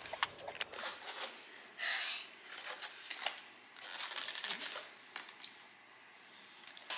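Paper liner and foam takeout box crinkling and rustling in short bursts as a small child picks french fries out of it.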